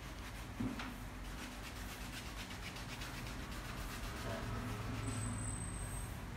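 Steel cuticle nippers snipping at a fingernail's cuticle: a quick run of small, sharp clicks from about a second in until about four seconds in.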